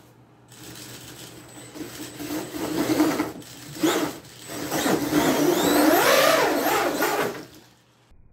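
Venom Mini Giant RC monster truck's brushless electric motor and drivetrain whining as it is throttled in bursts, the pitch rising and falling. Two short surges, then a longer run that cuts off abruptly near the end.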